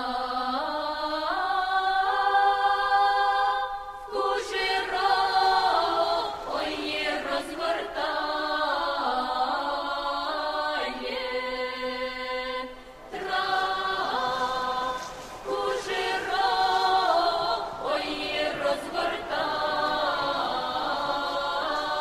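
Unaccompanied folk singing by a group of voices, holding long drawn-out vowels that rise and fall between words. There are brief pauses for breath about 4 and 13 seconds in.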